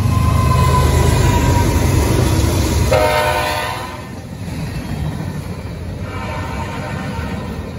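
Canadian National freight train passing close by: the diesel locomotives rumble past, with a short horn blast about three seconds in, then the sound drops as the freight cars roll past on the rails.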